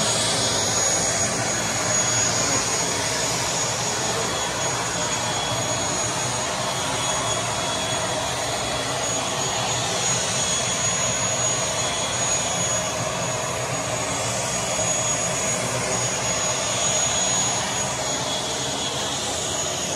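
Aircraft engines running steadily: a broad, even rush with a thin high turbine whine over it.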